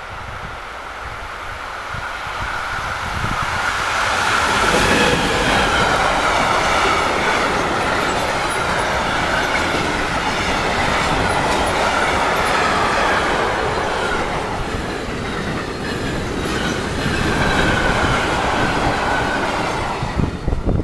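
Freight train passing close by: it grows louder over the first four seconds, then a steady rumble of wheels on rail with clicking over the rail joints and a high wheel squeal as covered sliding-wall wagons and empty car-carrier wagons roll past.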